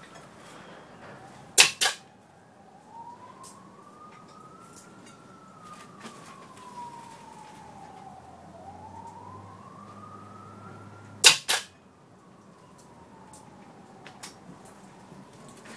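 The starter of a seized Chevrolet 6.2 diesel bumping the stuck engine twice, about ten seconds apart, each a sharp double clack as it jolts the crank a fraction of a turn. A faint siren rises and falls behind it.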